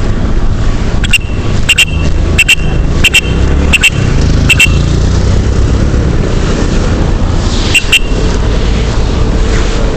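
Loud road and wind rumble on the microphone from a moving vehicle, with a run of six sharp ticks about 0.7 s apart in the first half and two more close together near the end.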